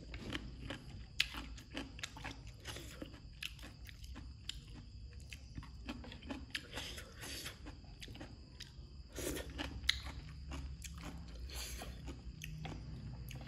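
A person chewing and crunching mouthfuls of papaya salad, a stream of short, irregular crunches close to the microphone.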